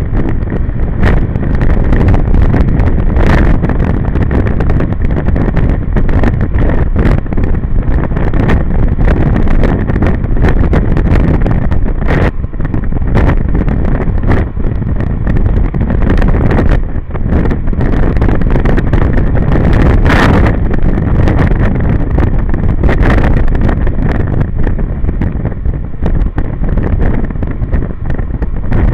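Wind rushing and buffeting hard against the camera microphone on a moving motor scooter, over the scooter's engine and its tyres on a wet road, with scattered sharp knocks of gusts or drops hitting the mic.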